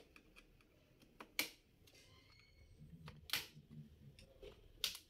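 Sharp plastic clicks and snaps, three louder ones spread out with fainter ticks between, as the clips of a Lenovo 300e Chromebook's C panel (keyboard deck) are pried loose from the front.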